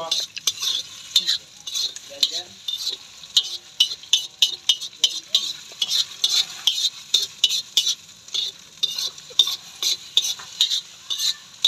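A spatula stirring and scraping scrambled eggs around a steel wok in quick repeated strokes, about two or three a second, while the eggs sizzle in the pan.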